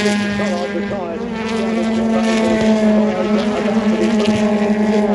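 Race car engines revving and changing pitch as the cars accelerate and shift gear, over a steady hum.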